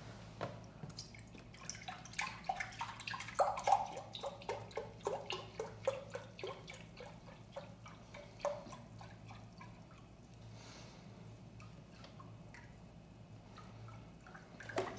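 Chicken stock pouring from a paper carton into a glass measuring cup: many short, irregular splashes and plops for the first several seconds, settling into a quieter, steady trickle as the cup fills toward 2 cups.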